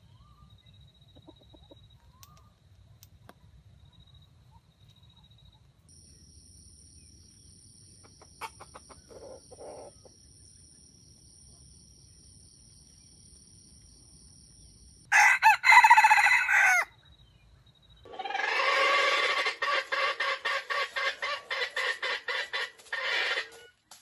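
Junglefowl roosters crowing: a short, loud crow a little past halfway, then a longer crow with a rapid chopping rattle lasting about five seconds near the end.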